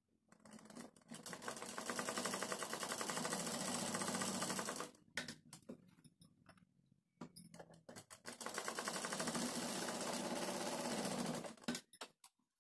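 Domestic sewing machine stitching in two runs. Each run gathers speed to a steady, fast, even chatter, with a few clicks and knocks between the runs and after them.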